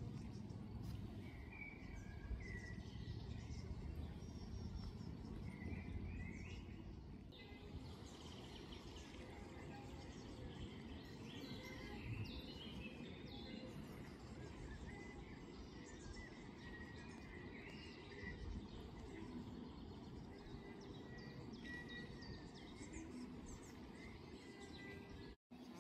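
Outdoor woodland ambience: small birds chirp briefly now and then over a low, steady background noise. The sound drops out for an instant near the end.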